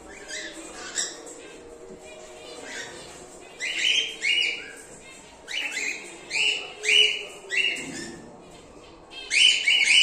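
Cockatiels in an aviary colony calling: a series of short, harsh screeching calls, faint at first, then loud and in quick clusters from a few seconds in, with a brief pause before a final loud pair.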